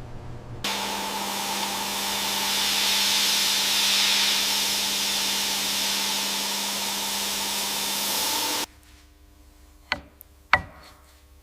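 A loud, steady spraying hiss with a low hum under it starts about half a second in and cuts off suddenly after about eight seconds. Three sharp clicks follow near the end.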